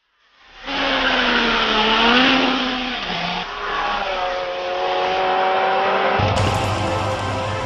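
Allard J2 sports racing car's engine under full throttle, heard from an onboard camera. It cuts in sharply half a second in, the revs rising hard, dropping about three seconds in at a gear change, then climbing again. About six seconds in the sound turns fuller and harsher.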